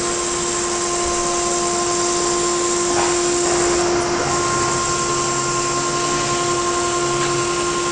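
Multicam 304 M Series CNC router running: a steady, high-pitched spindle whine and motor hum over a continuous rushing noise as the gantry moves the cutting head along its path across the sheet.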